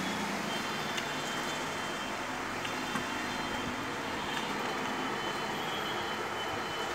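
Steady background noise with a few faint clicks as a cable plug is worked into a sewing-machine motor's foot-pedal regulator.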